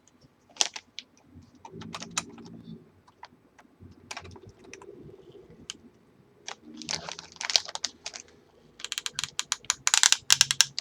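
Sharp clicks and metallic rattling from the CPU socket's load plate and retention lever on an LGA1155 motherboard, handled and pressed back down over the processor, with denser clusters of clicks toward the end.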